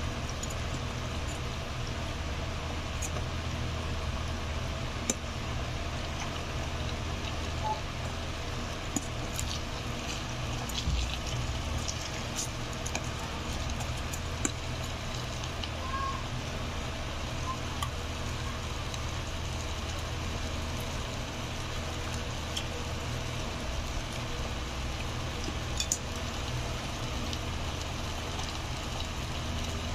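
Chicken fingers frying in hot cooking oil: a steady sizzle with scattered sharp pops and crackles, over a steady low hum.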